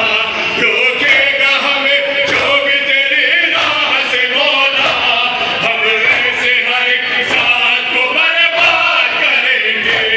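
Men chanting a Shia nauha (lament) together, with a crowd beating their chests in time (matam), a steady beat about every three-quarters of a second.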